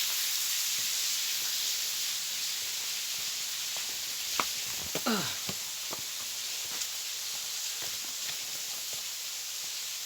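Waterfall: a steady rush of falling water. A few faint clicks and a short falling squeak come about halfway through.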